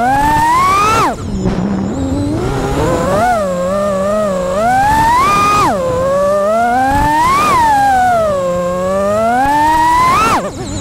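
A 5-inch FPV freestyle quadcopter's EMAX ECO II 2207 1900kv brushless motors and props whining as the throttle is punched and chopped. The pitch rises and falls over and over, with a sudden drop about a second in and another near the end as the throttle is cut for flips and rolls.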